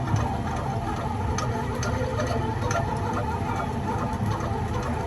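Boat machinery running steadily with a low rumble and a regular light ticking, about two ticks a second.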